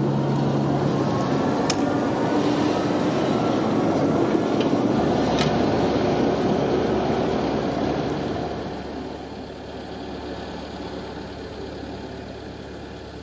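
Jungfrau Railway electric rack train running, a steady rumble with a faint rising whine in the first few seconds and two sharp clicks, getting quieter after about eight seconds.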